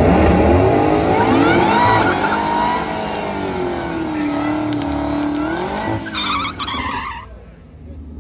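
Chevrolet Camaro V8 revving high through a burnout, its rear tyres spinning and squealing on the pavement. The engine note climbs at the start, holds, and drops away about seven seconds in.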